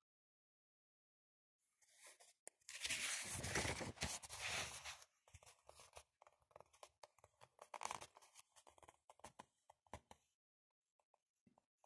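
Book pages being turned and handled: a loud paper rustle starting about three seconds in and lasting about two seconds, then a string of lighter paper crackles and clicks that stops about ten seconds in.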